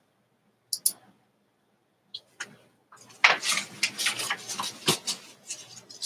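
A collage on card being picked up and slid off a tabletop: a few light clicks, then about two seconds of paper and card scraping and rustling against the table, with a sharper click near the end.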